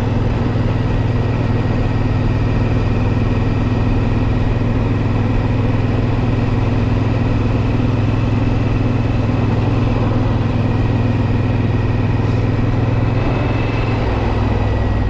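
Triumph Scrambler 900's parallel-twin engine running steadily at cruising speed, heard from the saddle with wind and road noise.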